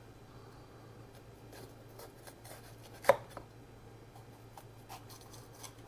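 Light kitchen handling noises on a counter: scattered faint taps and rustles, with one sharp knock about three seconds in and another near the end, over a steady low electrical hum.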